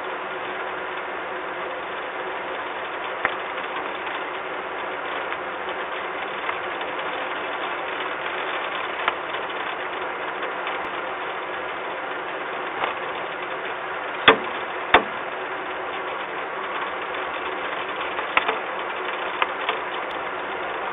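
Steady hiss with a faint machine hum, heard through a low-quality webcam microphone, broken by a few sharp clicks. Two loud clicks come close together about two-thirds of the way through.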